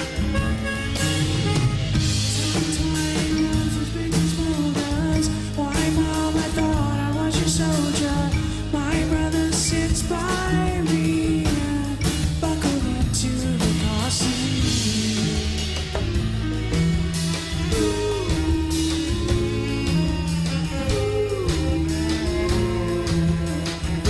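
Rock band playing live: drum kit and guitar keeping a steady groove, with a melody line bending in pitch over them.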